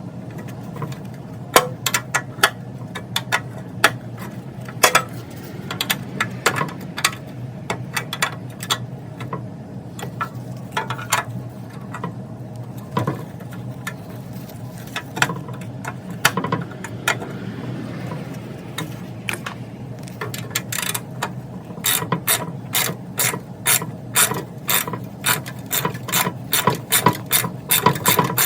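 Hand ratchet wrench clicking as it turns out the transmission mounting bolts. The clicks come in short uneven runs, then settle into a fast, steady run of about three clicks a second over the last several seconds.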